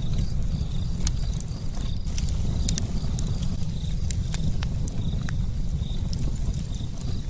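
Fire burning: a steady low rumble of flames with frequent sharp crackles and pops.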